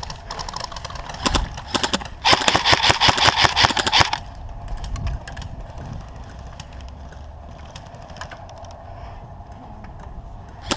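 Airsoft electric rifle firing: a few single shots about a second in, then a rapid full-auto burst of about two seconds, followed by faint scattered clicks.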